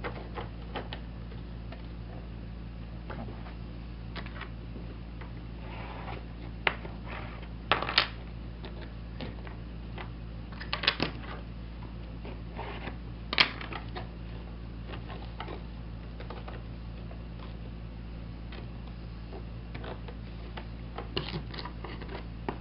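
Scattered light clicks and taps of tools working along soft lead came in a stained-glass panel as it is straightened out, louder a few times, over a steady low hum.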